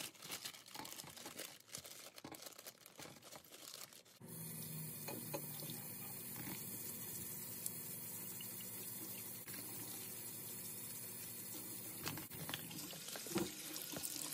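Kitchen tap comes on about four seconds in and runs steadily into a plastic colander while sweet potatoes are rubbed and rinsed under it. Before that there is rustling and knocking as the sweet potatoes are tipped out of a bag into the colander.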